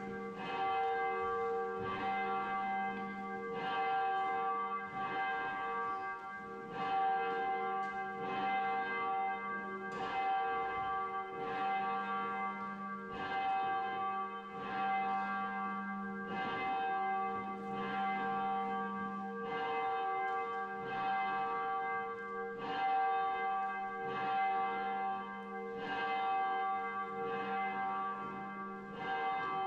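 Church bells ringing in a steady run of strikes, about one a second, each ringing on under the next.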